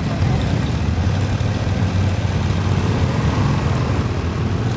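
Motorcycle engines running, a steady low rumble. About three seconds in, one engine rises and falls in pitch, as if briefly revved or passing.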